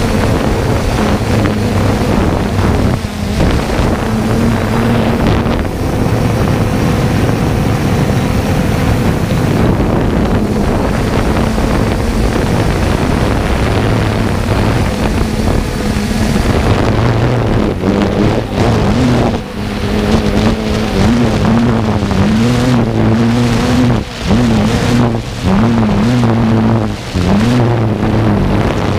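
3DR Solo quadcopter's motors and propellers humming steadily, picked up by the camera on the drone, with wind buffeting the microphone. In the second half the pitch wavers up and down as the motors change speed while the drone manoeuvres.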